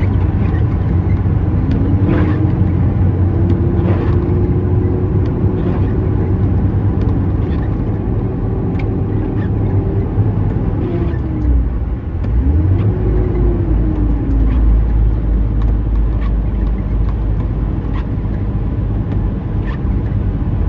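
Heavy truck-and-trailer unit's diesel engine running steadily under load, a low rumble with a whine that rises, holds for several seconds and falls away. About twelve seconds in the level dips briefly, then the low rumble deepens and a second short whine rises and falls.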